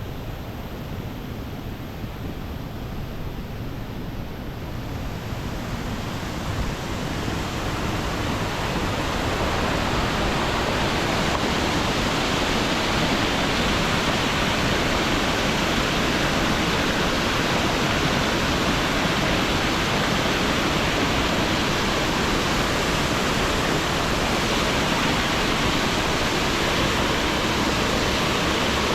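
Steady rush of water falling from Diyaluma Falls, a 220 m waterfall. It grows louder over the first ten seconds or so, then holds even.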